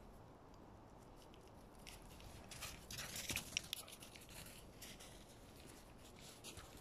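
Faint crunching footsteps on snow: an uneven run of short crunches about two seconds in, loudest around the middle, thinning to a few light ticks.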